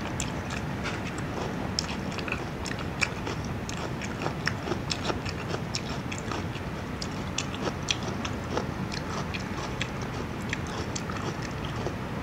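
A person chewing a mouthful of food close to a clip-on microphone: wet mouth sounds with many small sharp clicks and smacks, over a steady background hiss.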